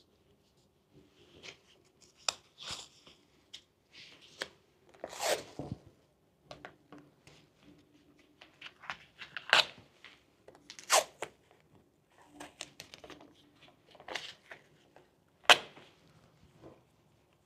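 Adhesive tape being handled, pulled and pressed onto a wall by hand: scattered rustles and short tearing sounds, the longest about five seconds in, with sharp clicks in between; the loudest is a sharp click near the end.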